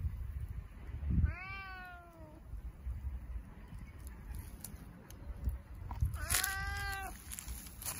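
Domestic tabby cat meowing twice: a drawn-out meow about a second in that rises and then falls in pitch, and a second one a few seconds later.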